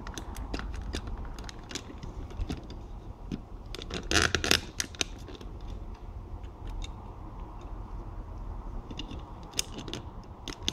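Small plastic toy figures and parts clicking, knocking and scraping as they are handled and pushed onto a plastic toy motorbike. There is a louder rustling scrape about four seconds in.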